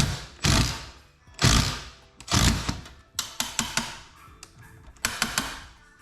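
Background music with strong beats, with bursts of rapid sharp clicking from the work midway through and again near the end.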